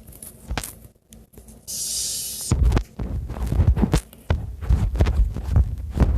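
A short hiss lasting under a second, about two seconds in, followed by a run of loud, irregular low thumps and rumbling.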